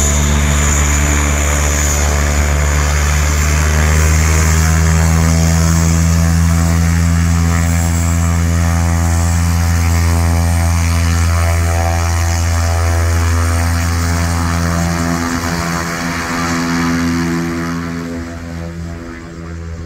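Cessna 208B Caravan's single Pratt & Whitney PT6A turboprop running as the plane taxis: a steady propeller drone with a high turbine whine over it, growing fainter over the last few seconds as the aircraft moves away.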